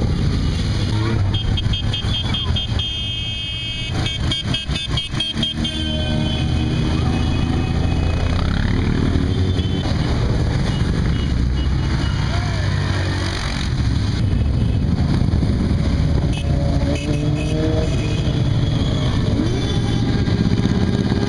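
A column of motorcycles riding past on a rain-wet street, engines running with a steady rumble. From about a second in to about six seconds in, a high tone beeps in rapid, even pulses.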